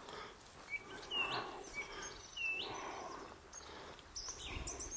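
Small birds chirping: a few short calls about a second apart, then higher, thinner calls near the end.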